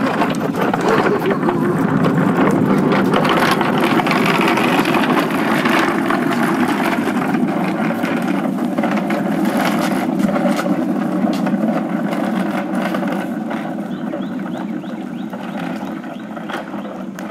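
Small hard wheels of a furniture dolly rolling over asphalt, a steady rattling rumble that fades over the last few seconds as it moves away.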